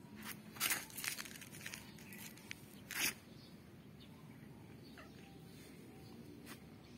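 Short scratchy rustling noises close to the microphone: a cluster in the first second or so and one more about three seconds in.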